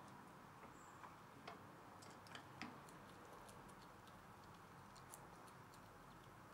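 Faint, irregular clicks and small cracks of a Eurasian red squirrel gnawing and eating at a feeder, with a few slightly louder cracks between about one and a half and three seconds in.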